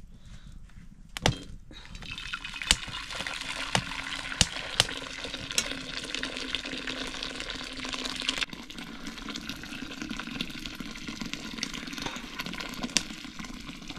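Water pouring: a steady rush with scattered sharp clicks, dropping a little in level and tone about eight and a half seconds in.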